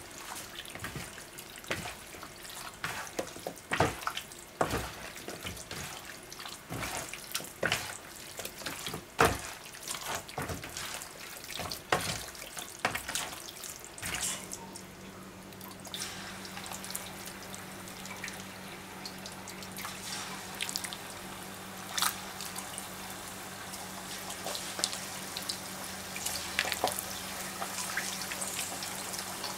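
Wet squelching and knocking of hands tossing marinated chicken pieces in flour in a bowl. About halfway through, this gives way to chicken pieces deep-frying in hot oil: a dense, steady crackle and sizzle over a low steady hum.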